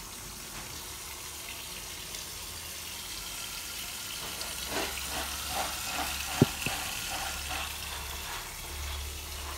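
Tap water running steadily into a stainless steel sink onto snakehead fish, with some splashing in the second half and a single sharp knock a little past the middle.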